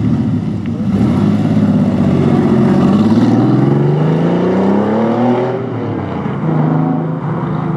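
Air-cooled flat-six engine of a classic Porsche 911 rally car accelerating away, its note rising steadily for about four seconds, then dropping sharply at a gear change and running on at lower revs.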